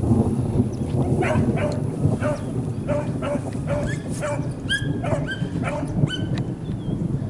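A pack of beagles baying on a rabbit's trail: short, repeated bays from several dogs at different pitches, two or three a second, starting about a second in, over a steady low rushing noise.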